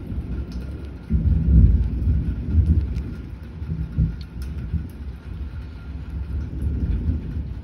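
Thunder rumbling: a deep roll that swells suddenly about a second in, then dies away slowly with a few smaller surges.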